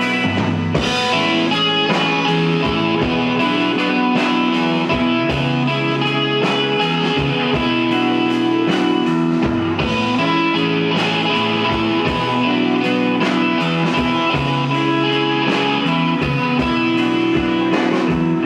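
Live rock band playing an instrumental passage between verses: electric guitar and bass over a steady drum-kit beat.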